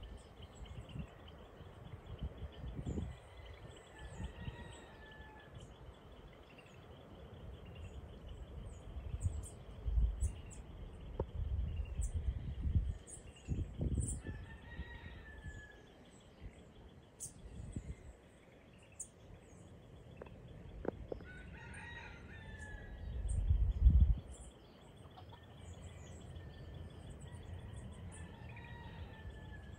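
Birds calling in the distance: a few drawn-out calls repeated every several seconds, with faint high chirps. Intermittent low rumbles run underneath, the loudest late on.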